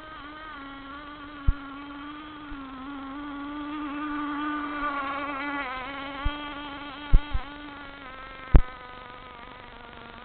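Small K&B 3.5 glow engine on a radio-controlled model outboard boat running at speed, a high buzzing note whose pitch wavers as the boat turns. It grows louder in the middle as the boat passes nearer. A few sharp clicks sound over it, the loudest near the end.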